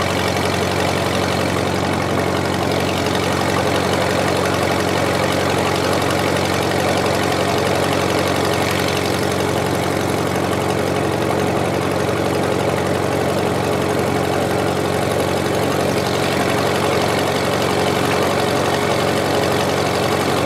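Old trailer-mounted engine-driven welder running steadily at an even idle, a low, constant engine drone.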